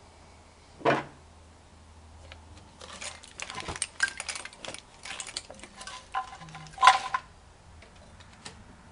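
Scattered clicks and light clattering of hoses, plastic fittings and wiring being worked loose by hand in a car's engine bay, busiest in the middle with a sharper knock near the end.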